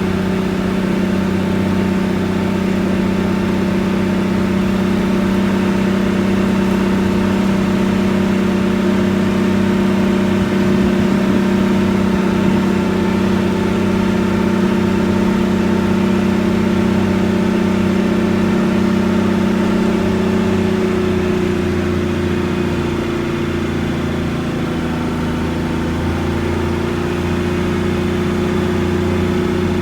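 Unimog truck's diesel engine running at a steady speed, a constant low hum that dips slightly in pitch and loudness about two-thirds of the way through.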